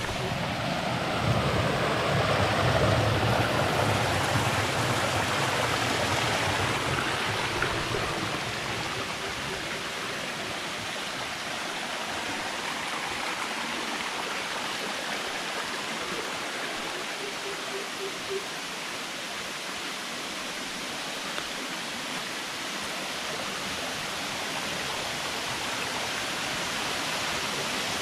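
Jungle stream running over rocks and small cascades: a steady rush of water, louder for the first several seconds, then softer.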